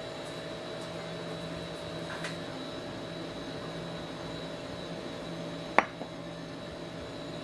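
Steady machine hum with a faint tap, then about six seconds in one sharp clink of a stainless steel scoop knocking against a glass jar as powder is tipped in.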